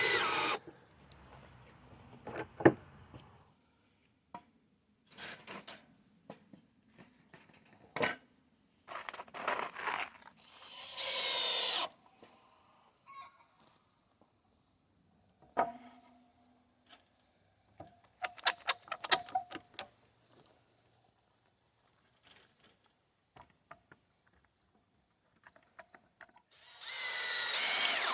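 Woodworking on a small build: scattered knocks and clatter of boards and tools, a quick run of rattling clicks a little before the 20-second mark, and a few short power-tool bursts about a second long, one at the start, one about 11 seconds in and one near the end. A steady high insect buzz runs underneath from a few seconds in.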